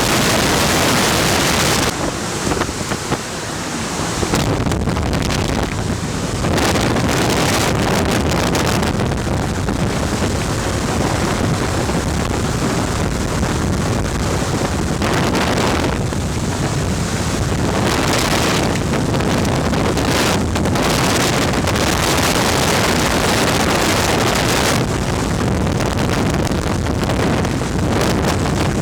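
Loud rush of air driven by a VOD-40 axial mine ventilation fan, buffeting the microphone as wind noise. It is hissiest for the first two seconds, then goes on in uneven gusts.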